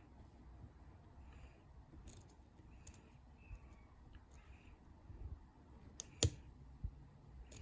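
Lock pick and tension wrench working the pins of a Master Lock 1921 100th anniversary padlock: scattered sharp clicks over faint scraping, the loudest click about six seconds in.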